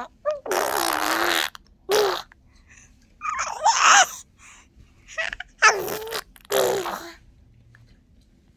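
A baby making breathy, raspy vocal sounds in five short bursts, the longest about a second, with pauses between them.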